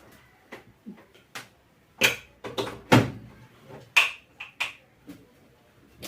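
Scattered knocks and clatters of hard objects being handled and set down, about ten separate knocks, the loudest around two and three seconds in.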